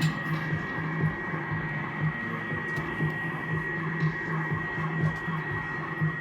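Steady electronic hum with a thin high tone, over a low buzz that pulses irregularly about two or three times a second, as from amplified gear during a sound check.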